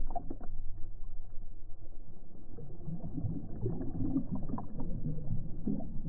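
Muffled, irregular sloshing and splashing of water with small knocks, dull as if heard through a waterproof camera housing at the waterline, as a sluice box carpet is washed out in the river.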